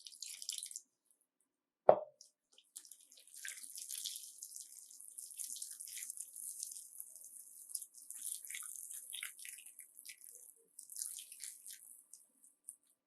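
Thick wet chicken-and-gram-flour batter being stirred in a bowl, a run of squelching and sloshing that is thinned with added water. There is a single sharp knock just before two seconds in.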